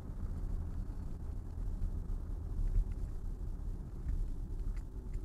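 Steady low road and tyre rumble inside a Tesla Model Y's cabin as the car slows under regenerative braking.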